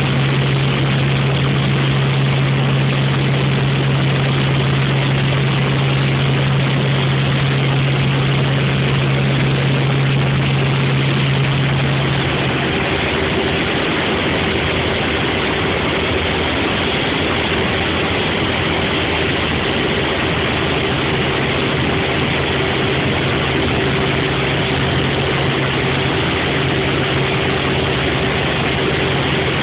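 Helicopter in flight: a steady engine and rotor drone over a constant rushing noise. About twelve seconds in, the strong low hum drops away and a higher steady tone takes its place.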